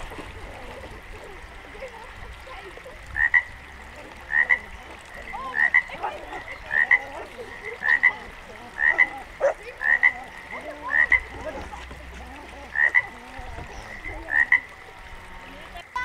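A frog croaking: a short call repeated about once a second, some ten times, starting a few seconds in.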